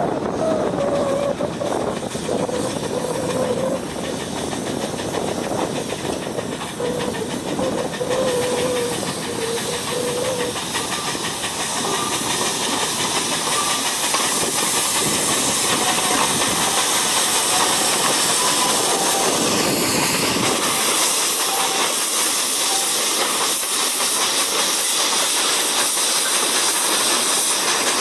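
Narrow-gauge steam locomotives hissing steam as they haul a passenger train. The hiss grows louder and brighter about halfway through.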